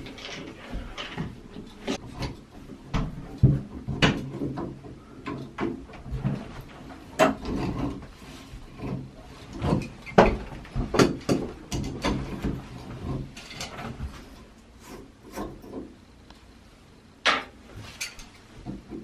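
Irregular knocks, clicks and scrapes of tools and metal fittings being handled while the old faucet is taken apart, with a steady low hum through the middle.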